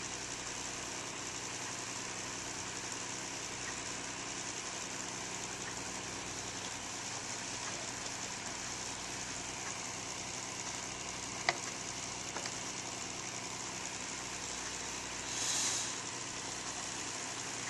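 Steady background hiss with a low hum. There is a single sharp click about eleven and a half seconds in and a short rush of noise near the end.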